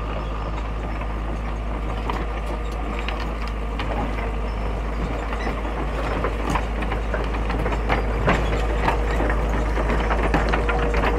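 Excavator and truck engines running as the machines move off up a rough track, with scattered clanks and clicks. The sound grows slowly louder.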